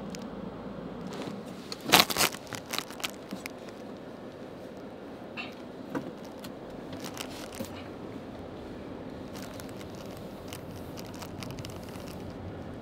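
Steady road noise inside a moving car, with a loud cluster of sharp clicks and rattles about two seconds in and a few lighter clicks a few seconds later.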